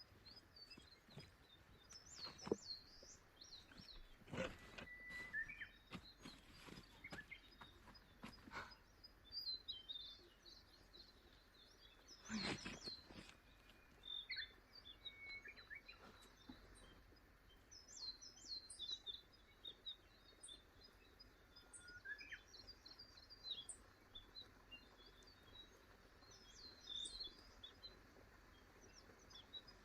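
Small songbirds chirping and twittering faintly in a forest. A few sharp knocks and rustles come in the first ten seconds, with a louder one about twelve seconds in.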